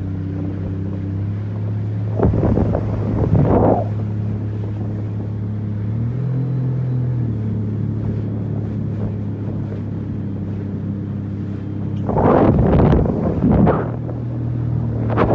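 Sea-Doo GTX 300 jet ski engine idling steadily, broken by louder rushing surges about two seconds in and twice near the end.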